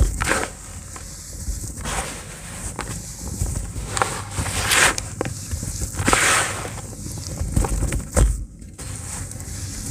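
Hands squeezing and crumbling damp lumps of pure cement in a plastic tub: gritty crunching and crackling as the clumps break, with crumbs dropping back onto the pile, in uneven handfuls. It is loudest in a couple of bigger crumbles in the middle and dips briefly near the end.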